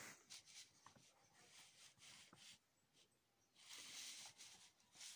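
Near silence with faint handling noise: soft rustles and a few light clicks as the paper and camera are moved.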